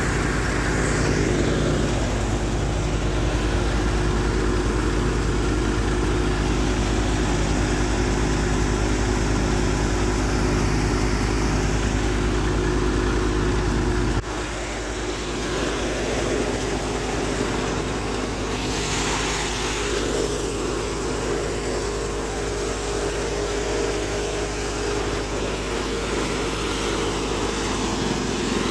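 Tractor diesel engine running steadily at a constant pitch while driving a grain thresher, with the thresher's rumble and the rush of grain. About halfway through the sound drops a little and turns rougher and noisier, as the view moves to the thresher's grain chute.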